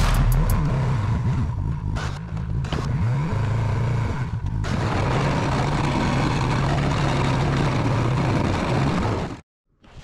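Polaris Sportsman ATV engine running under load while plowing snow, its pitch rising and falling as the throttle changes. It cuts off suddenly near the end.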